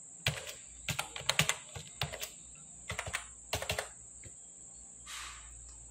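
Keystrokes on a computer keyboard as a password is typed: about a dozen sharp key clicks in uneven clusters over the first four seconds. A short soft hiss follows about five seconds in.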